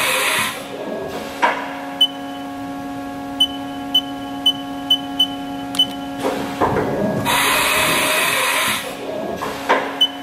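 Haas VF-2YT vertical machining centre running, its spindle and drives giving a steady whine of several held tones. Coolant spray hisses loudly at the start and again for about a second and a half near the end. Short high beeps sound several times in between.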